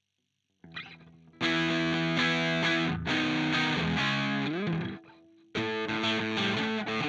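Electric guitar played through a TC Electronic Mojo Mojo overdrive pedal, with distorted chords. After a little light picking, the chords come in loud about a second in and ring out, with a slide in pitch. They drop away briefly, and the playing resumes loud near the end.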